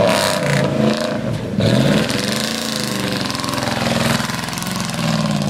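Dodge pickup's engine working under load while towing a single-wide mobile home. Its pitch dips and climbs back up about a second and a half in, then holds steady near the end.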